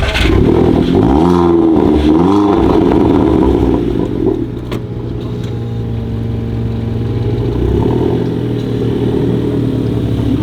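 Audi A3 Sportback with a custom RVS exhaust revving: a few quick blips rising and falling in pitch in the first couple of seconds, then the engine settles into a steadier, quieter run.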